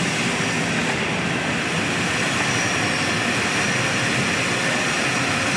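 A four-spindle aluminium-profile CNC drilling-milling machine running: a steady loud machining noise, with a faint high spindle whine that comes in about halfway through and again near the end.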